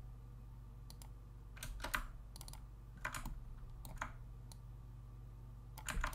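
Scattered, irregular clicks of a computer keyboard and mouse, a dozen or so short taps, over a steady low hum.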